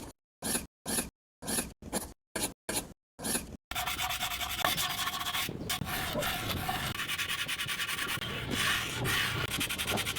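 Rubbing and rasping, like filing or sanding in miniature building work: short separate strokes with silence between them, then about four seconds in, continuous fast rasping.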